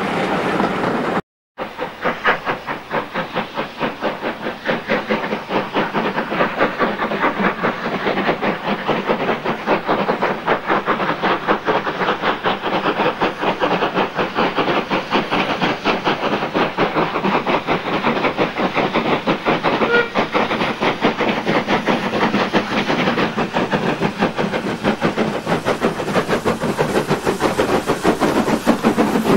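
Two steam tank locomotives double-heading a passenger train, chuffing with rapid, even exhaust beats that grow a little louder as they approach. Before them, a second of coaches rolling past, cut off abruptly.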